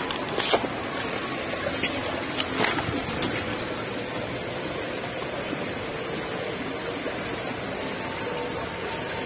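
Steady rush of a shallow stream flowing over rocks, with a few short sharp clicks in the first three seconds.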